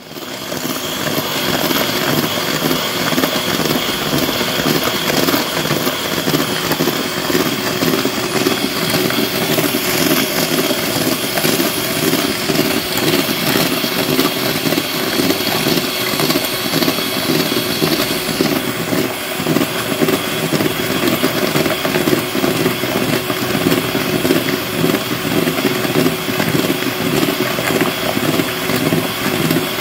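Electric mixer switched on and running steadily at speed, its motor whirring as it beats a cake mix; its tone shifts slightly about two-thirds of the way through.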